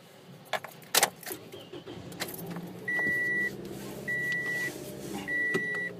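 Keys jangling and a few sharp clicks as a car is readied, then a car's dashboard warning chime sounding: one clear beep about half a second long, repeating evenly about every second and a bit, over a low steady hum.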